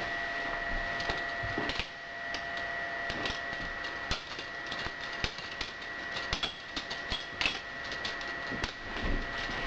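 Spyderco Szabofly balisong being flipped: irregular clicks and clacks of the handles swinging and meeting, several a second, over a steady faint high whine.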